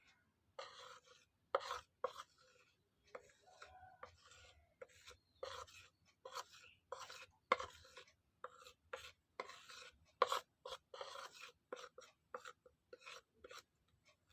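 A spoon scraping and scooping powdered turmeric, short rasping strokes one after another, about one or two a second.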